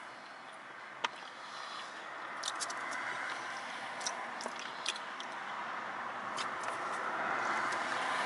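Eating sounds from foil-wrapped tacos: chewing, with scattered small clicks and crinkles of aluminium foil, over a rushing background noise that grows steadily louder.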